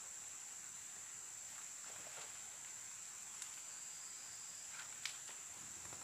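Faint, steady high-pitched drone of insects, with a few short faint clicks or chirps, the sharpest about five seconds in.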